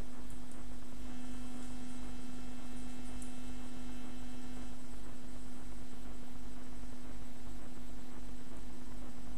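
Electric guitar amplifier humming and buzzing with one steady tone, while a faint ringing from the idle guitar fades out about halfway through.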